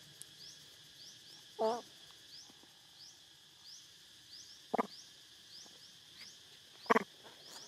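Outdoor insect ambience: a steady high drone with a high rising chirp repeating about twice a second. A brief voiced call comes about a second and a half in, and two short sharp sounds come later, one about two-thirds through and one near the end.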